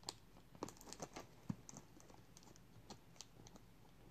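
Faint, scattered clicks and scratches of a fixed-blade knife cutting through packing tape on a cardboard box, most of them in the first half.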